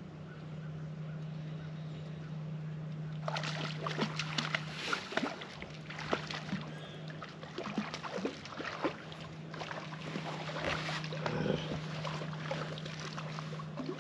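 A hooked bass splashing at the surface as it is reeled in to the side of the boat, with irregular splashes starting about three seconds in. A steady low hum runs underneath.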